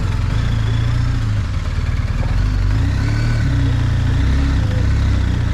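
BMW R 1250 GS boxer-twin engine running steadily at low revs as the motorcycle rolls slowly in second gear.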